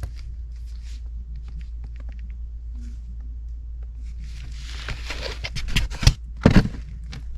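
Handling noise: rustling and scraping starting about five seconds in, with clicks and two loud knocks near the end, over a steady low hum.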